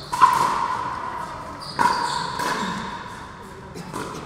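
Pickleball paddles striking the plastic ball during a rally: two sharp pops with a short ring, about a second and a half apart, then a fainter knock near the end, echoing in a large hall.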